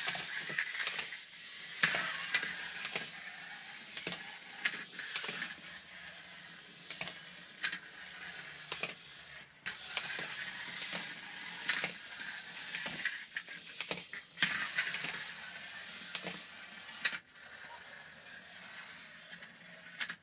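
Clockwork motors of small plastic Z Windups toy cars whirring as they run across a tabletop, with scattered clicks and knocks as the toys flip and tumble. The whir dips and picks up again several times as the toys wind down and are set off again.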